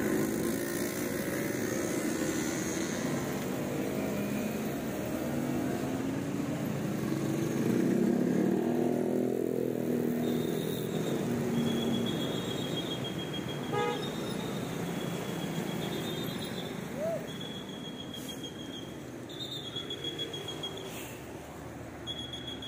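Large tour coach's diesel engine running steadily, swelling for a few seconds near the middle as a coach moves. Faint high-pitched beeps come and go in the second half.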